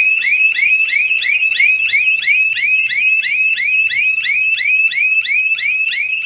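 Burglar alarm siren sounding, set off by a door being opened while the system is armed: a loud, shrill rising whoop repeated about three times a second.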